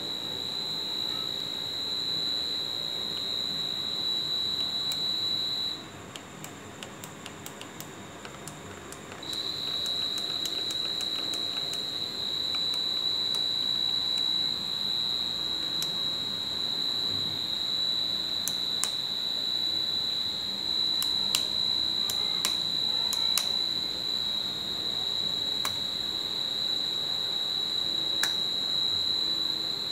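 Continuous high-pitched electronic beep from a Bajaj Pulsar 220F's buzzer, tied to a faulty BC unit. It cuts out for about three seconds a fifth of the way in, while a quick, even run of clicks is heard, then comes back on.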